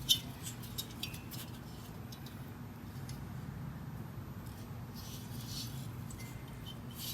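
Small clinks and light scraping as a metal part is handled, over a steady low hum.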